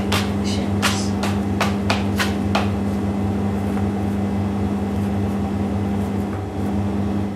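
A run of sharp taps, about two a second, in the first few seconds, from a plastic dough scraper cutting through pumpkin scone dough and knocking on the wooden table beneath, over a loud steady low hum.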